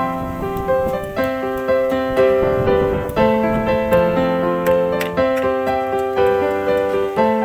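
Background piano music, a calm melody of evenly paced notes with chords.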